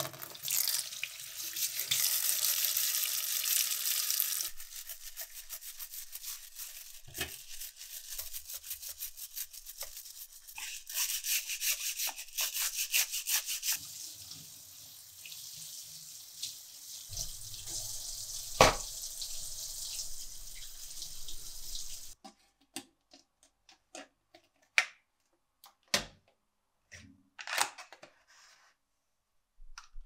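Kitchen tap running into a stainless steel sink as dishwasher filters are rinsed under the stream, the flow loudest in the first few seconds and again about halfway through. The water stops a little over two-thirds of the way in, and after that there are only scattered clicks and knocks of the plastic filter parts being handled.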